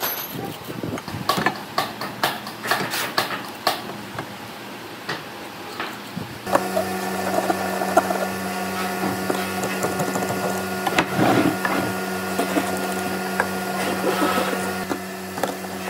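Light knocks and clicks of hand tools handled on timber on a wooden workbench. About six and a half seconds in, a steady machine hum at one unchanging pitch starts and becomes the loudest sound.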